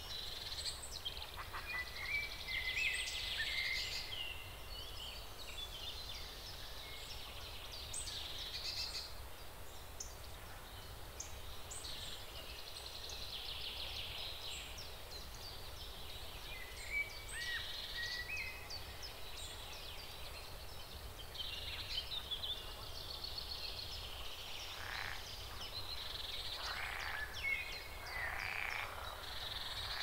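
Forest ambience with frogs croaking: many short calls and trills overlapping in a continuous chorus, with a few louder calls standing out now and then.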